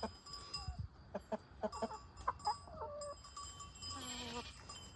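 Hens clucking in short, scattered calls, with a longer, lower call about four seconds in.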